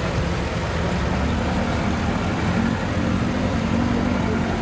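Lada Niva's engine running steadily at low revs as the car creeps over a log obstacle in low gear, the pitch wavering slightly.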